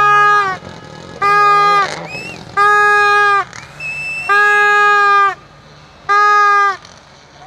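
A spectator's horn blown in five loud blasts of one steady note. Each blast lasts under a second, about a second apart.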